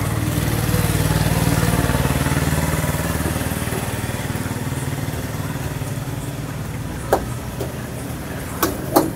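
A motor vehicle's engine passing by: a low, steady hum that swells over the first couple of seconds and slowly fades. A few sharp clicks come near the end.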